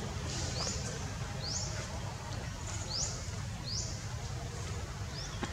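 A small bird calling: short, high chirps that sweep up and drop back, repeated at an even pace of about one a second, over a low steady rumble.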